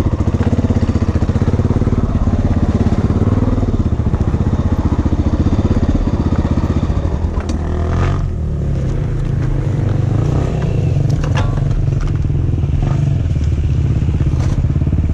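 Dirt bike engine running under throttle, its pitch rising and falling as the bike is ridden. About halfway through it drops to a steady idle, with a few sharp knocks and clicks.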